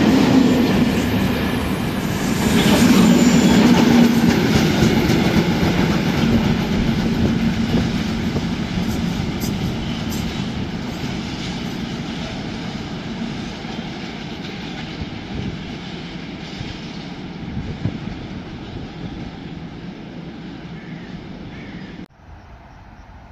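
A train passing on the track, wheels clattering over the rails with some wheel squeal, loud at first and fading steadily as it moves away. The sound drops suddenly to a much quieter background near the end.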